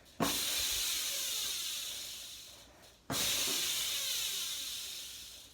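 Freewheel hub of a 20-inch race bike buzzing loudly as the wheel is spun. It happens twice, starting suddenly and fading as the wheel slows.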